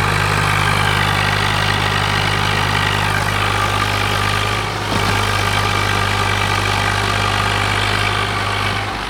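Swaraj 735 FE tractor's three-cylinder diesel engine running steadily while hitched to a loaded sand trolley in loose soil. Its low, even note drops away near the end.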